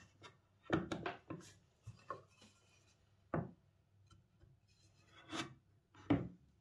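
A haunched tenon on a solid ash apron being pushed by hand into the mortise of an ash table leg. Wood slides and rubs against wood, with several short wooden knocks and scrapes spread through.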